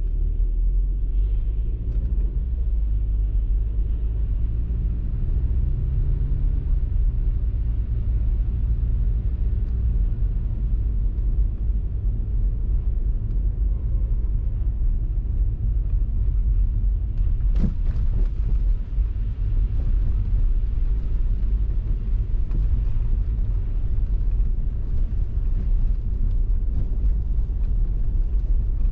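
Car driving through city streets: a steady low rumble of road and engine noise, with a single brief knock about two-thirds of the way through.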